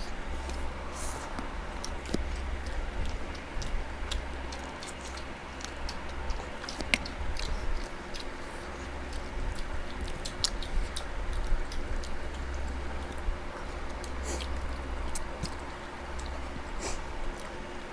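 Close-miked chewing and biting of food, with many small clicks and mouth smacks, over a low steady hum.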